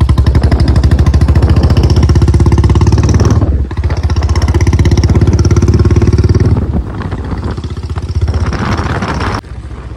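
Motorcycle engine running under way, heard from on the bike with a rapid pulsing beat. Its level dips briefly about three and a half seconds in, falls noticeably after about six and a half seconds, and drops again near the end.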